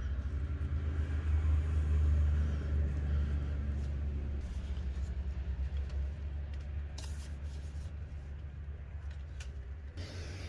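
A steady low rumble, loudest in the first few seconds, with a few faint rustles of food and paper being handled.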